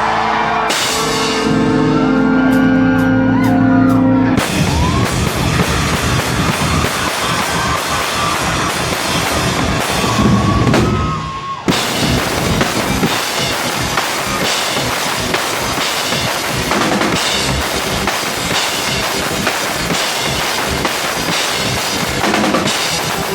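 Rock band playing loud with a full drum kit. A chord is held for the first few seconds, then drums and the whole band come in hard. There is a brief break about eleven seconds in before the song drives on.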